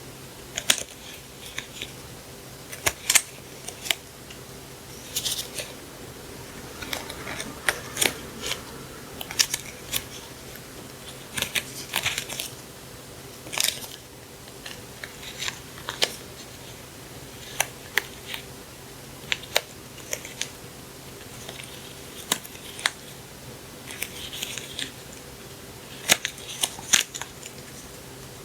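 Close-up handling of paper and plastic stationery packaging: scattered sharp clicks and taps with short bursts of crinkling and rustling, over a faint steady hum.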